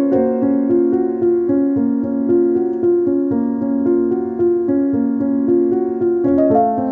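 Background keyboard music with a piano sound, a melody whose notes change about every half second over held chords.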